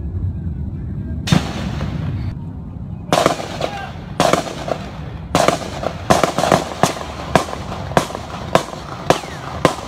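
Gunfire during a shooting: one shot about a second in, then, from about three seconds in, a run of about fifteen more at uneven spacing, some in quick pairs, each with a short echo.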